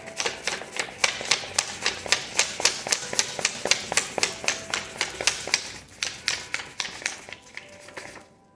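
A deck of cards being shuffled by hand, a quick run of crisp card snaps about four to five a second, trailing off near the end.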